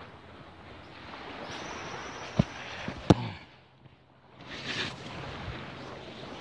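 Wind and light surf hissing steadily on the microphone, broken by two sharp knocks about a second apart near the middle, followed by a brief muffled drop in the sound.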